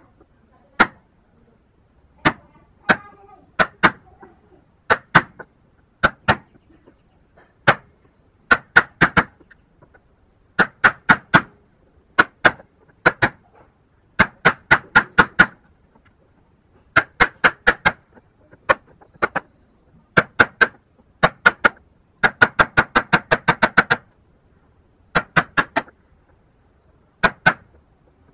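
Chisel being struck by a mallet, chopping the waste out of the slot for a bridle joint in a small wooden block. Sharp knocks come in quick bursts of two to five blows with short pauses between, and a faster run of blows about three-quarters of the way through.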